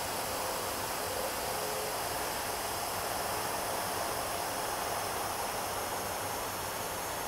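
Air hissing steadily out of the open valve of a Seahawk inflatable boat as it is pressed flat to deflate it.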